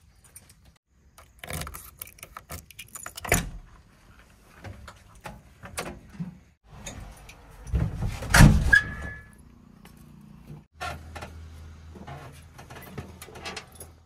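Clinks, rattles and knocks of someone climbing into a JCB 3DX backhoe loader's cab, with a heavy thump about eight seconds in. A low steady hum comes in near the end.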